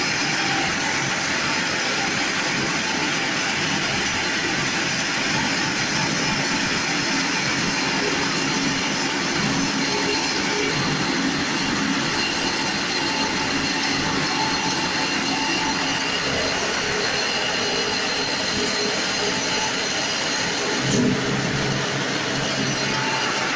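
Automatic silage baler-wrapper running steadily, its rollers turning the round bale as stretch film is wound onto it, a continuous mechanical clatter and hum. A brief louder bump comes near the end.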